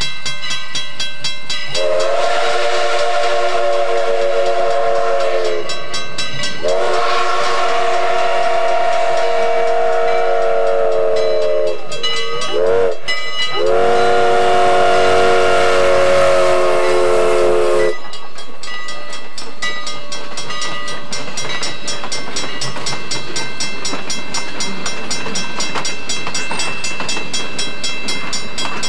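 Steam whistle of C&NW 4-6-0 steam locomotive #1385 blowing a chord of several notes in the grade-crossing pattern, long, long, short, long, over the steady rhythmic running of the train. After the last blast, about two-thirds of the way in, only the rhythmic running of the train goes on.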